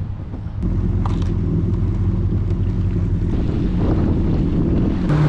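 Yamaha FX Cruiser HO WaveRunner's engine running at a steady pitch under way. It comes in loud about half a second in.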